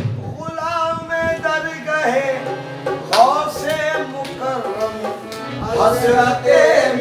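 Devotional song: a voice sings long, drawn-out, wavering notes. The drum beat heard around it drops out for most of this stretch, with a few hand-drum strikes about three seconds in and again near the end.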